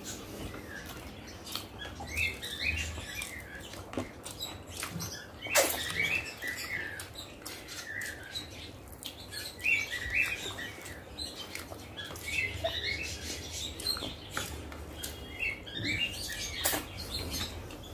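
Close-miked eating sounds of rice and curry being chewed: a steady string of wet clicks and smacks, with small high squeaks scattered through.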